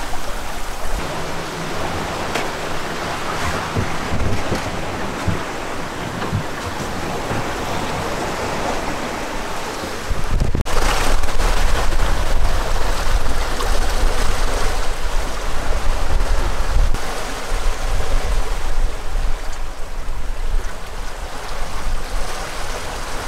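Sea rushing past a sailboat under sail, with wind on the microphone. About ten seconds in, a cut brings louder, rumbling wind buffeting over the water noise.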